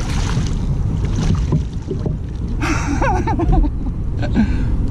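Steady low rumble of wind on the microphone, with a short burst of splashing water about two and a half seconds in as a hooked striped bass thrashes at the surface beside the kayak.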